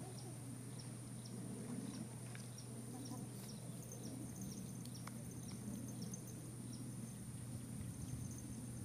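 Night-time insect chorus: a steady high-pitched buzz with short chirps repeating about twice a second, over a steady low hum.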